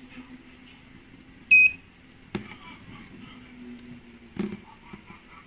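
A single short, high electronic beep about a second and a half in, followed by a couple of light clicks from handling small parts on the workbench.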